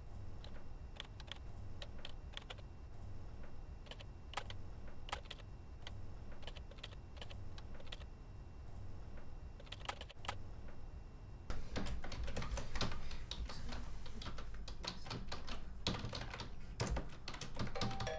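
Typing on a computer keyboard: scattered key clicks at first, then a faster, louder run of keystrokes from about two-thirds of the way through.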